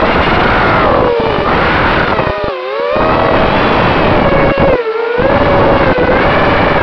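Shendrones Krieger mini race quad in flight, heard from on board: its brushless motors and propellers whine over rushing wind, the pitch rising and falling with the throttle. Twice the throttle briefly drops away, about two and a half and five seconds in.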